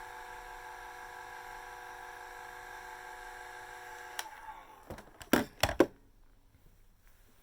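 Hair dryer running with a steady whining hum, switched off about four seconds in, followed by a few sharp knocks and clacks of handling.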